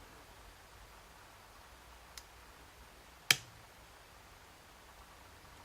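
One sharp metallic click about three seconds in, with a fainter tick about a second before it, from a UCEM dimple lock being picked with a tension wrench and pick.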